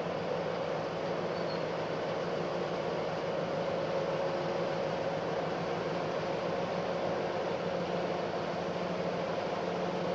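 The ST44 (M62) locomotive's two-stroke V12 diesel engine running steadily, a constant drone with a low hum and a higher hum over it.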